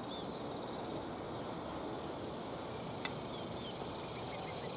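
Steady high drone of cicadas with a few short bird chirps over it, and one sharp click about three seconds in.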